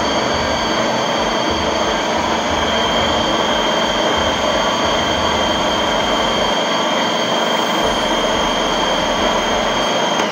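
Electric food processor motor running steadily with a high whine, its blade churning cooked chickpeas and beet into a thick hummus paste; it stops suddenly at the very end.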